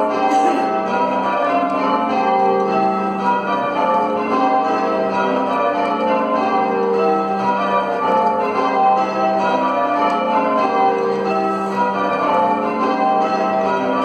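Church bells being change-rung: a continuous run of bell strikes at different pitches, one after another in a steady rhythm, each left ringing as the next sounds.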